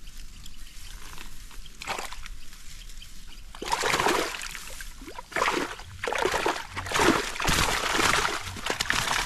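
Wet rustling and splashing in waterlogged grass, in irregular bursts that turn louder a few seconds in.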